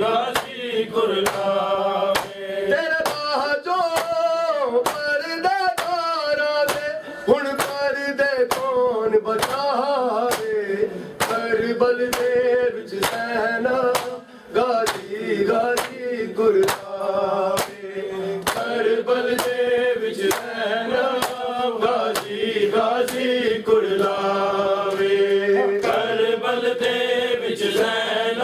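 Men's voices chanting a noha (Shia lament) in a steady melodic line, over a regular beat of open hands striking bare chests in matam, about one and a half strikes a second.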